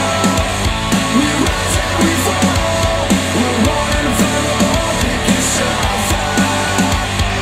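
Death metal track with heavily distorted guitar riffs and busy drumming, played back through KEF R3 bookshelf speakers.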